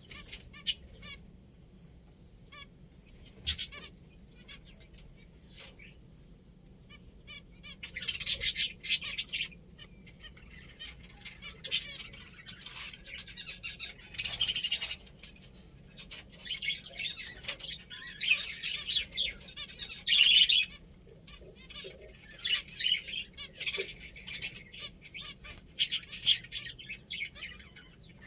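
Pet finches chirping and twittering in scattered bursts, with the loudest flurries about a third and halfway through.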